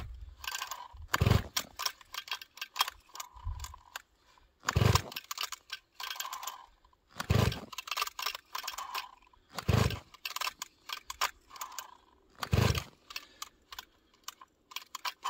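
Ported Sachs Dolmar chainsaw's recoil starter pulled hard about five times, a couple of seconds apart, with a light rattle between pulls. The cold engine turns over without firing, its high compression making it hard to pull over in the deep cold.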